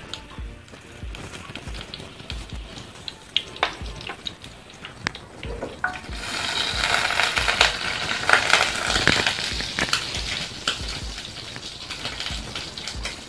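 Whole garam masala spices sizzling and crackling in hot oil in a stainless steel frying pan. Scattered pops at first, turning to a denser sizzle about six seconds in that eases off toward the end.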